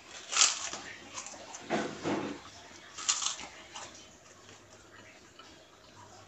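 A crisp kerupuk cracker bitten and chewed: a loud crunch about half a second in, followed by several more crunches over the next three seconds.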